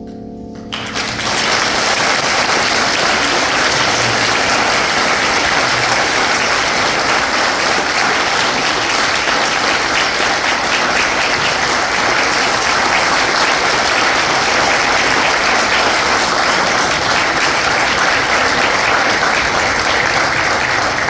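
A congregation applauding, loud and sustained. A held musical chord ends just before the clapping starts, about a second in.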